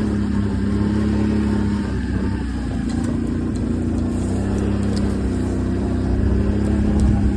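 Vehicle engine running steadily as it is driven. It eases off about two seconds in and picks back up a couple of seconds later.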